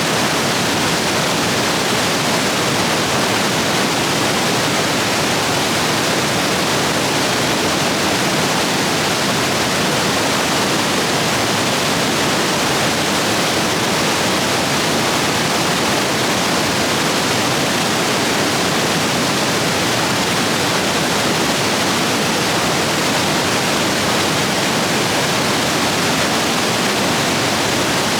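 Rain-swollen stream rapids rushing over rocks, a steady, loud roar of water with no change in level.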